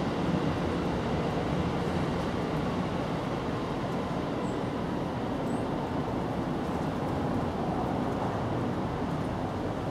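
Steady low outdoor background rumble with no distinct events, the kind of noise distant road traffic makes, and two faint high chirps near the middle.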